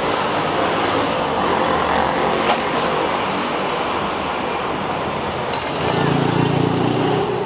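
Street-stall ambience: steady traffic noise with sharp metal clinks of cooking utensils, once about two and a half seconds in and a quick cluster about five and a half seconds in. A low vehicle engine drone swells near the end and is the loudest part.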